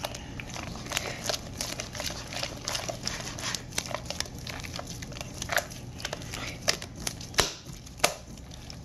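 Sticky store-bought slime, worked up with shaving cream and activator, being kneaded and squeezed by hand: a run of irregular wet crackling pops and squishes, with a couple of sharper pops near the end.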